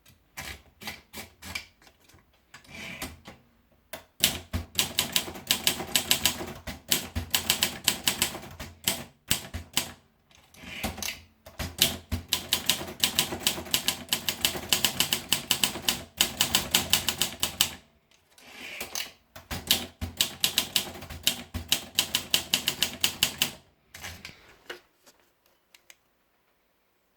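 Olympia SM4 manual portable typewriter being typed on: fast runs of key strikes in several long bursts with short pauses between them, stopping about a second before the end.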